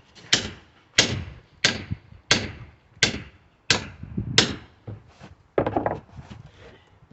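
Small sledgehammer striking hard and steadily, seven blows about every 0.7 s, knocking apart a wood pallet, with a longer, rougher noise near the end.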